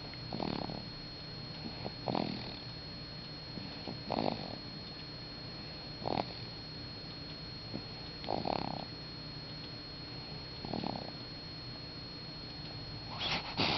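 A six-week-old baby snoring in sleep: seven short snoring breaths, about two seconds apart.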